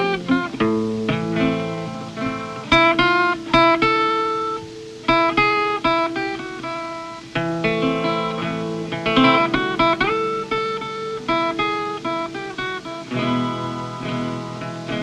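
Instrumental soundtrack music on a plucked string instrument, playing picked melody notes and chords over held bass notes.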